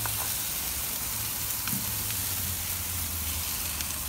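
Chicken thighs sizzling on the grates of a gas barbecue grill: a steady hiss with a few faint crackles and a steady low rumble underneath.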